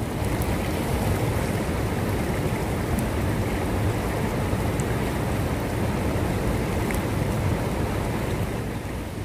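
Fast-flowing river rushing and churning over a shallow, rocky bed, a steady loud rush of water.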